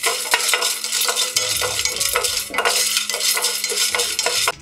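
Wooden spatula stirring peanuts and cardamom pods in a hot stainless steel pan as they roast: a steady scraping hiss with many small clicks of the nuts rattling against the metal.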